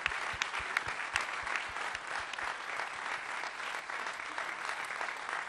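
Audience applauding steadily in a theatre, a dense patter of many hands clapping.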